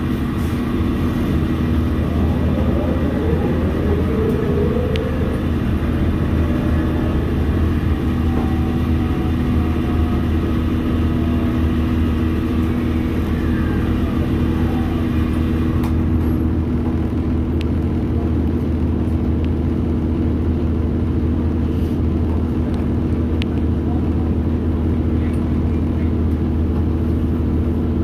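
Cabin of an Orion VII Next-Gen city bus: the engine and drivetrain run with a steady low hum as the bus rides and then waits in traffic.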